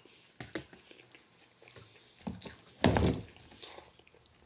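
Eating sounds at a table: chewing with small clicks and knocks, and one louder thump just under three seconds in.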